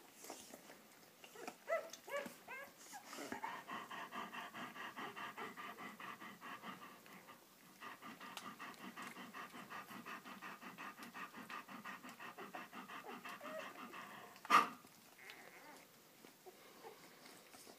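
A German Shepherd dog panting fast and evenly, about four to five breaths a second, with a short break about halfway through. A few high squeaks from newborn puppies come about two seconds in, and one short, sharp sound comes near the end.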